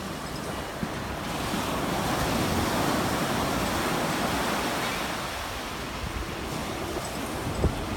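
Ocean surf breaking on the shore, its rush swelling for a few seconds in the middle and then easing, with wind buffeting the microphone.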